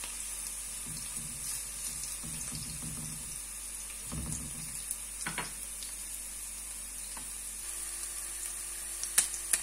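Sliced garlic sizzling steadily in hot oil in a non-stick frying pan as it begins to take colour. A few light clicks of a silicone spatula stirring it come about five seconds in and near the end.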